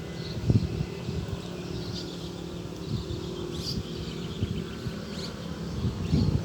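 An insect buzzing steadily, with scattered low thumps and faint high chirps in the background.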